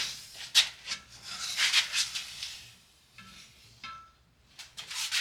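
Vinyl floor tape being pulled off its roll and stretched around a painted steel wheel rim: irregular rustling and rubbing strokes, with two short faint squeaks about three and four seconds in.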